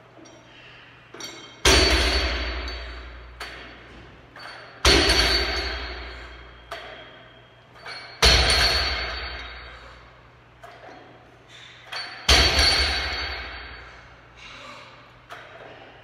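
A loaded barbell with rubber bumper plates is set down on a rubber gym floor between Pendlay row reps. It makes four heavy thuds about three to four seconds apart, each with a ringing of bar and plates that dies away over a couple of seconds. Fainter knocks come just before each thud.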